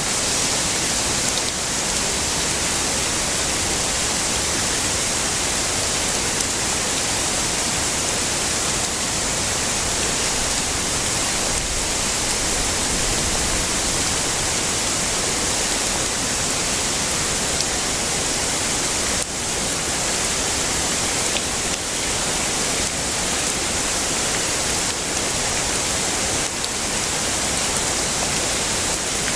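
Heavy rain falling, a steady dense hiss with no thunder.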